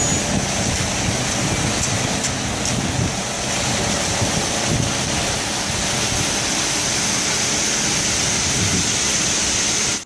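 Concrete mixer truck running during a pour, with its chute in use: a steady, dense rushing noise with a low engine rumble underneath. The noise starts and stops abruptly.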